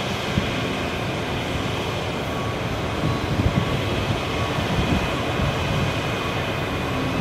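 Crane truck's diesel engine running steadily under load, driving the hydraulics while the National 9125A telescopic boom is lowered.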